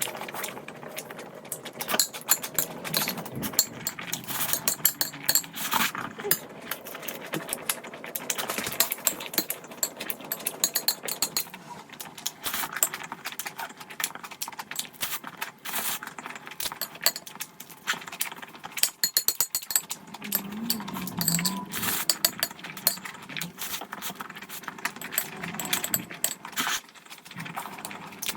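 Close-miked eating sounds: irregular wet chewing and smacking of noodles and side dishes, with frequent small clicks and clinks of utensils.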